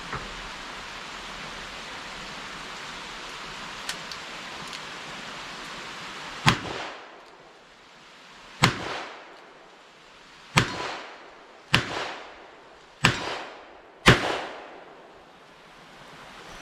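Six shots from a Smith & Wesson Model 64 .38 Special revolver, fired one at a time about one to two seconds apart, each a sharp crack with a short echoing tail. The loads are light 158-grain lead round-nose handloads.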